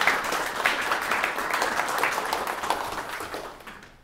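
Audience applauding, with many quick claps, dying away near the end.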